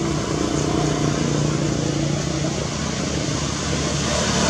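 A motor vehicle engine running steadily, with a constant low hum over a broad rushing noise.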